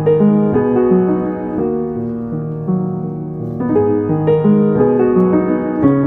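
Background music: a soft piano melody with sustained notes changing about every half second.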